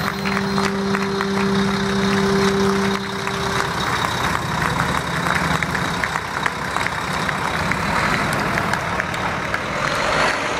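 Motor coach driving slowly past close by, its engine running, with a steady horn-like tone held for about the first three and a half seconds.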